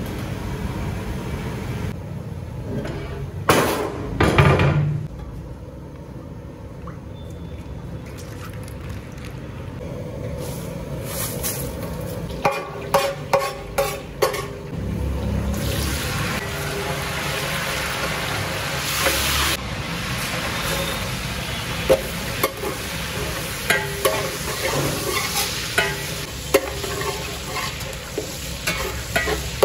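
Whole spices and bay leaves sizzling in hot oil in a large aluminium pot. From about halfway, green chillies and garlic fry in it while a metal spatula stirs, scraping and knocking against the pot again and again.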